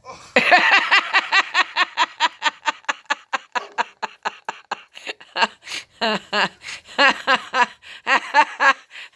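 A person laughing hard: a long, unbroken fit of quick ha-ha pulses, about five a second, that breaks out suddenly just after the start.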